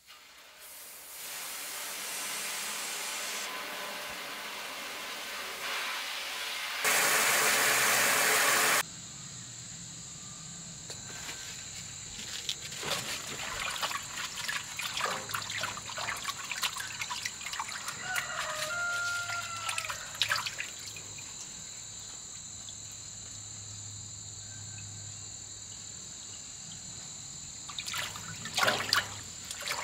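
Tap water running into a stainless steel sink, steadily building, then much louder for about two seconds before it is shut off. After that, hands splash and swish leafy greens in the filled basin, with many small splashes.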